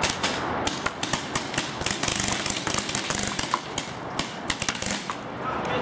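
Paintball markers firing: irregular sharp pops, several a second, coming thickest about two to three seconds in.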